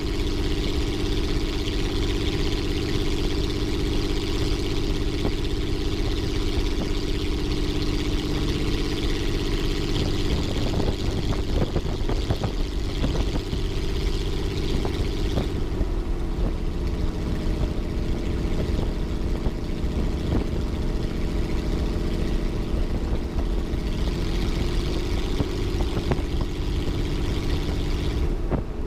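Titan T-51 Mustang's Suzuki V6 with short stack exhaust pipes running at low power on the ground, heard from the cockpit. The engine note shifts about ten seconds in and drops lower about sixteen seconds in, with a few light clicks in between.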